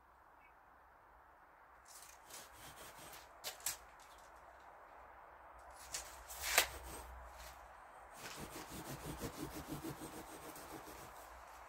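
A long serrated insulation knife sawing through a thick mineral wool slab with rasping back-and-forth strokes, which become quicker and more regular in the last few seconds. A single sharp click about halfway through is the loudest sound.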